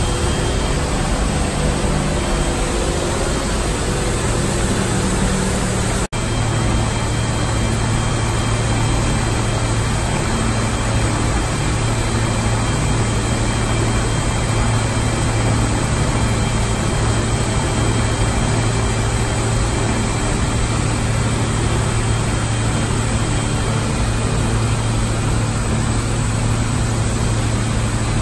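Carpet overlocking machine line and its suction extractor running together, a loud, steady machine hum and hiss with no change in speed. It cuts out for an instant about six seconds in.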